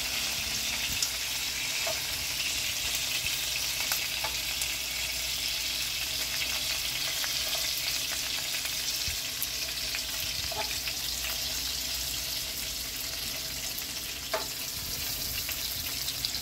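Cut pieces of steak sizzling as they fry in a pan of hot fat on an electric stove, with a few light clicks of metal tongs against the pan as the pieces are moved.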